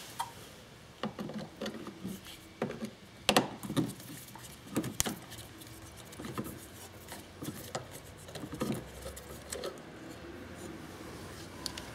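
Folding Torx key set clicking and rattling as its metal keys are handled and turned in the fasteners of a plastic engine-bay cover, with irregular sharp taps and knocks, the loudest a few seconds in.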